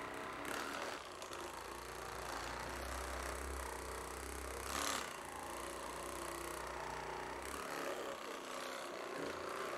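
Handheld percussion massage gun running while pressed against muscle, a steady low motor hum that stops about three-quarters of the way through. A short rushing noise comes about halfway in.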